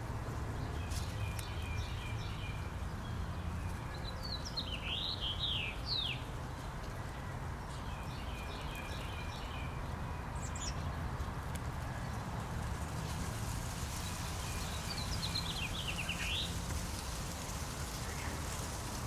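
Chickadee calls. Runs of short repeated notes come about a second in and again about eight seconds in. Flurries of quick sweeping notes come around five seconds and fifteen seconds in. All of it sits over a steady low background rumble.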